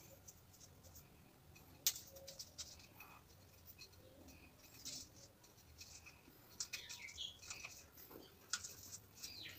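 Faint crinkling, scratching and small clicks of PTFE thread-seal tape being pulled off its roll and wound around the threads of a plastic drain pipe fitting, with a sharper click about two seconds in.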